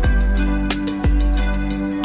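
Background music: an instrumental track with a steady beat and held bass notes.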